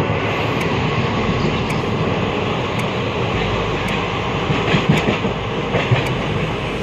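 Passenger express train running along the track: a steady rumble of the wheels on the rails, with a few low knocks about four to six seconds in.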